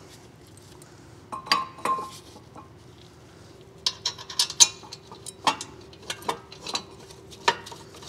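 Metal clinks and knocks of a steel brake caliper support bracket and its mounting bolts being handled and fitted over the rotor: a couple of knocks with a brief ring at first, then a quicker scatter of clinks from about four seconds in.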